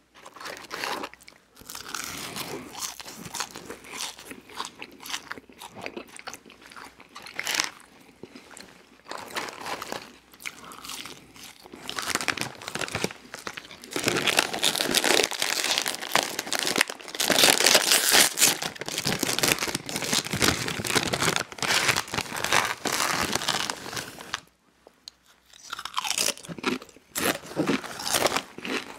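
Eating sounds: biting and chewing french fries, then a Doritos bag crinkling as it is handled about halfway through, followed by loud crunching of tortilla chips.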